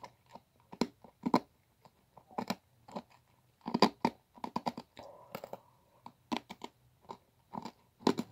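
Close-up crunching and chewing of Toxic Waste sour hard candy in the mouth: irregular sharp crunches about every half second to a second, the loudest a little under four seconds in.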